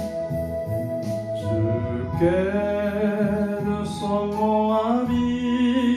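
A hymn is being performed over keyboard accompaniment with sustained chords. A singing voice comes in about two seconds in with a slow, wavering melody line.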